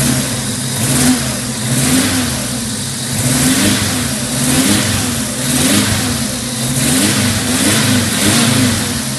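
Subaru EA82T turbocharged flat-four engine being revved with repeated short throttle blips, about once a second, falling back toward idle between them.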